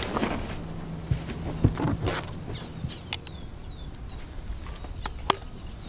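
Rustling and several sharp clicks and knocks of hunting gear being handled: a backpack shouldered and a scoped rifle gripped. Behind them a small bird gives a run of short, quick downward-sliding chirps.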